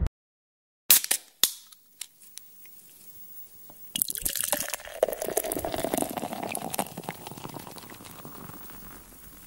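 A few sharp knocks against the glass, then beer poured in over a camera sitting inside it, heard from within the glass: the pour starts suddenly about four seconds in with a rush of splashing, turns to bubbling and gurgling as the glass fills, and fades.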